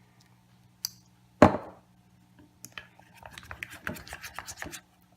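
Shaving cream and glue being stirred in a bowl with a utensil, heard as a run of quick, irregular scraping and tapping strokes from about halfway in. Before the stirring there is a click and then one loud thump, the loudest sound here.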